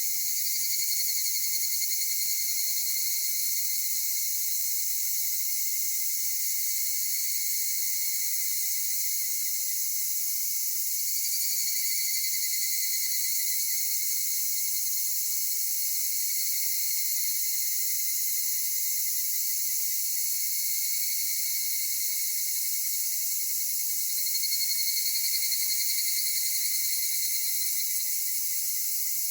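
A steady high-pitched chorus of higurashi (evening cicadas, Tanna japonensis) and other insects, with calls swelling louder three times: about a second in, near the middle and near the end.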